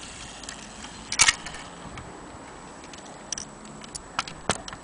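Sharp metallic clicks and clacks from a brass Hermle Westminster clock movement being turned over in the hand: one loud clack about a second in, then several lighter, irregularly spaced clicks near the end.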